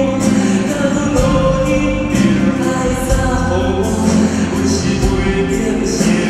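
Live performance of a Taiwanese Hokkien folk song: a male voice singing, accompanied by two acoustic guitars.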